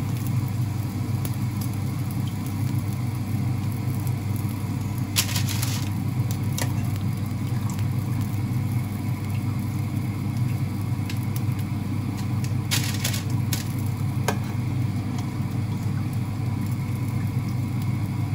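Hot oil frying in a pan, a steady sizzle over a low rumble. A metal slotted spoon clinks and scrapes against the pan a few times, about five seconds in and again about thirteen seconds in, as fried dumplings are lifted out.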